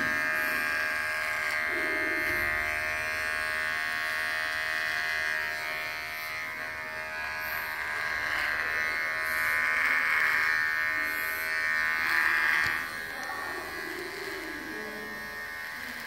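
Electric hair clippers buzzing steadily as they cut through a long, thick beard. The buzz swells for a few seconds past the middle and drops back a little near the end.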